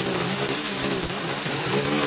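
Small gas engine of yard equipment running steadily, its pitch rising and dipping as the load on it changes.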